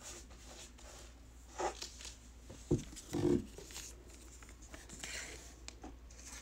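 Faint handling of a trading card and clear plastic sleeves: soft rustles and scattered small clicks, the loudest a sharp click a little under three seconds in.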